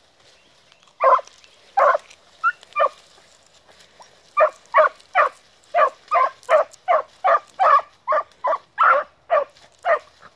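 Young scent hounds giving tongue on a rabbit's scent trail. A few separate bays come first, then a quick, steady run of bays, two to three a second, as the hounds work the line.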